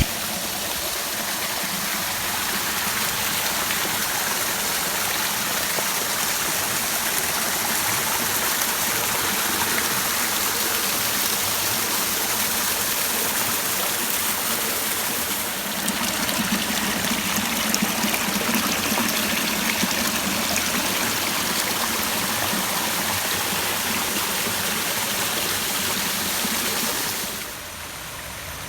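Waterfall and stream water rushing steadily. There is a short break about halfway, and the sound drops quieter just before the end.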